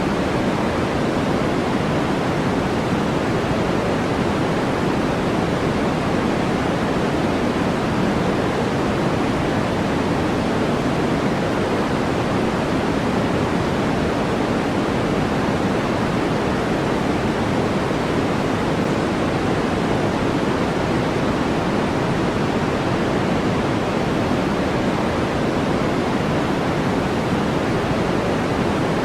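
Steady, unchanging synthetic white noise, a constant hiss with more weight in the low and middle pitches than in the highs.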